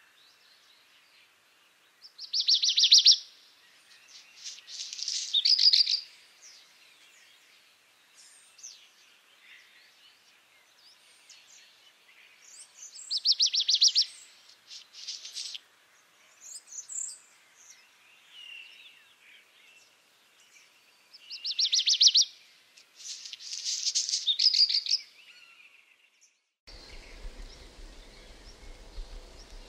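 Black redstart singing: three song phrases about ten seconds apart, each a short rattle followed a moment later by a scratchy, crackling trill, with fainter notes in between. Near the end the background changes to a steady hiss with a low hum.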